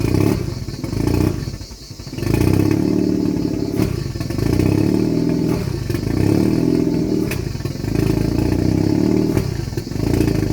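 Car engine on a freshly changed tune running in repeated uneven surges as the throttle is worked, never revving out cleanly. It is struggling to stay running, a tuning fault that the owner suspects is in the fuelling.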